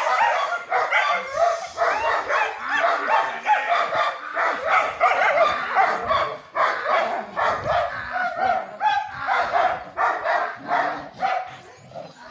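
German Shepherd guard dogs barking rapidly and without pause while attacking a man in a padded bite suit during protection training. The barking eases off about a second before the end.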